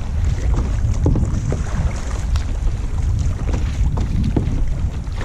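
Wind buffeting the microphone in a heavy, constant low rumble, with water splashing irregularly as a kayak paddle dips and pulls through choppy sea.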